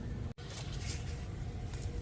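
The 2008 BMW 335i's twin-turbo inline-six engine idling with a steady, uneven low rumble and a few light ticks. The sound drops out for an instant about a third of a second in.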